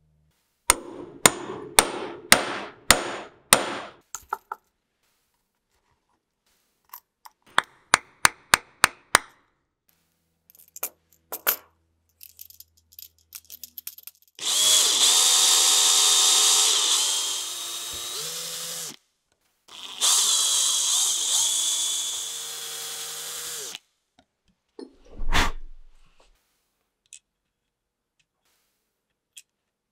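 Power drill boring a small pilot hole into a hardwood block in two runs of a few seconds each, its motor pitch shifting as it loads up and eases off. Before it, a string of sharp clicks and taps; after it, a single thump.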